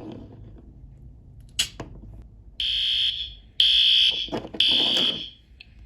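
A sharp click, then about a second later a fire alarm starts sounding: three loud, high-pitched beeps in quick succession, each close to a second long.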